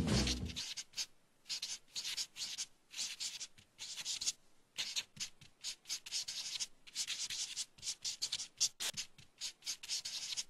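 A felt-tip marker scratching across paper in many short, quick strokes with brief pauses between them.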